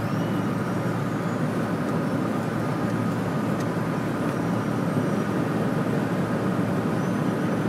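Steady road and tyre noise on a wet road, heard from inside a car cruising at highway speed, with a faint steady whine running through it.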